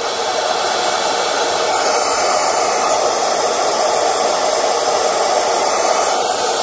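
Babelio portable white noise machine playing its pink noise sound at full volume through its small speaker: a loud, steady, even hiss, growing louder over the first second as it is turned up.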